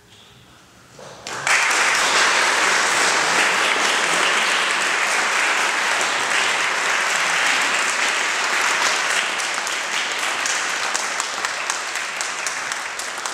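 Audience applauding: after a brief hush the clapping starts suddenly about a second and a half in, holds steady, and slowly eases off toward the end.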